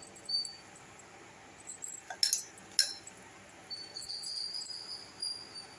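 Light clinks of fingers and dough against a stainless steel bowl, two sharp ones a little after two seconds in, while dough is pinched out by hand. A faint high steady tone sounds in the second half.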